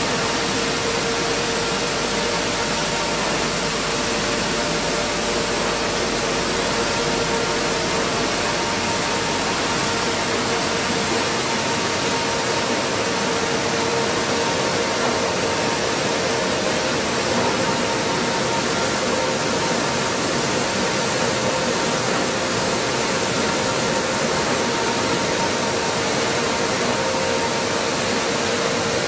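Stone flour mill plant machinery running: a steady, even whir with a constant hum tone.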